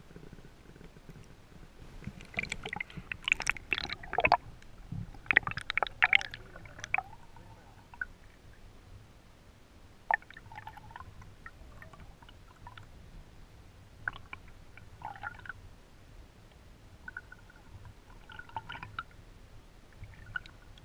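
Splashing and bubbling as a camera goes into the water, loudest from about two seconds in and lasting several seconds, then muffled underwater gurgling with scattered faint clicks.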